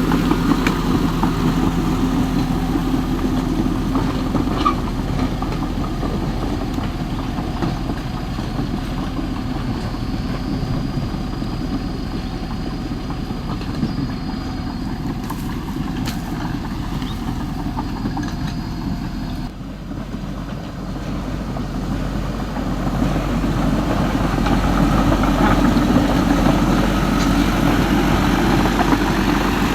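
Electric motors and gearboxes of a radio-controlled toy excavator and bulldozer whirring steadily as they work soil. The sound eases off briefly about twenty seconds in and then picks up again.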